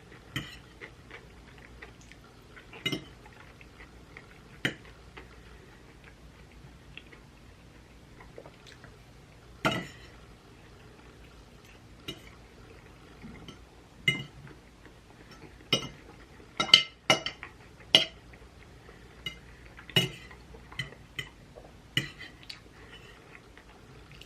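Cutlery clinking and tapping against a dish while eating, in irregular sharp clinks every second or two, with a quick run of louder clinks about two-thirds of the way through.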